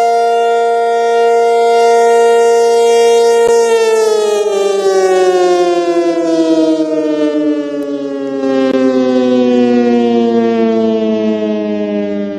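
Outdoor warning siren sounding, probably part of an attack signal: a loud, steady wail held at full pitch for about three and a half seconds, then sliding slowly down in pitch and fading near the end.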